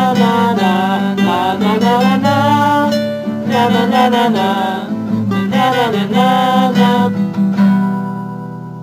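Acoustic guitar song, strummed, with a sung melody over it, fading out near the end.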